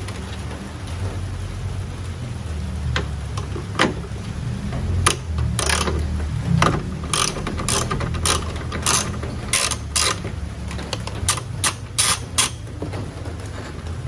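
Hand ratchet on a socket extension clicking in short, irregular runs as it turns a bolt. The clicks start about three seconds in and stop shortly before the end.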